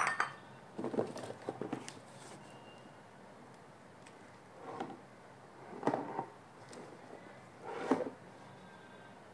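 Dinnerware being handled: a ceramic-or-glass plate clinks with a short ring at the start, followed by a few soft knocks and shuffles as the pieces and their packing are moved about.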